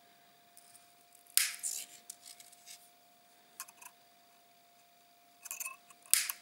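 Small flush side cutters snipping thin wire: two sharp snips, one about a second and a half in and one near the end, with lighter clicks of the cutter jaws and wire handling between them.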